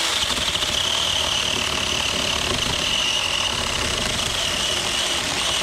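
Taranzy mini cordless electric chainsaw cutting through a log, its motor holding a steady high whine over the rasp of the chain in the wood without bogging down under the load.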